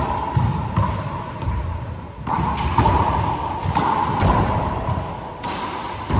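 Handball rally in a four-wall court: the rubber ball smacks the walls and hardwood floor about once a second, each hit echoing around the enclosed court, with sneakers squeaking and shuffling on the floor between hits.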